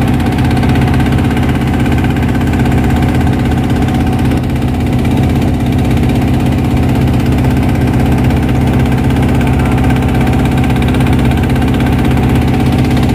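Wooden boat's engine running at a steady, even pace while the boat is underway: a loud, unchanging drone.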